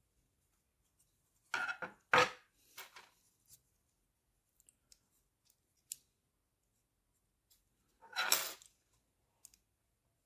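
Snips and scrapes of hand tools working small plastic model-kit parts: a quick cluster of short strokes about a second and a half in, then one longer stroke near the end, with a few light clicks between.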